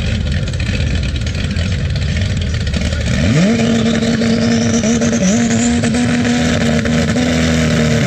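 Drag-car engines at the start line: a low idle rumble, then about three seconds in an engine is brought up fast to high revs and held there steadily, with one brief dip, waiting for the launch. A faint high whine climbs in pitch over it.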